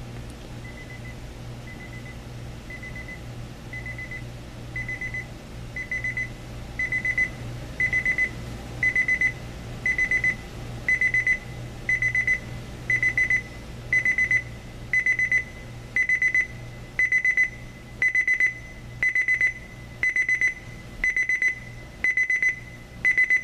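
Homedics SoundSpa clock radio's ascending beep alarm: high electronic beeps of rapid pips, about one burst a second, starting faint and growing steadily louder.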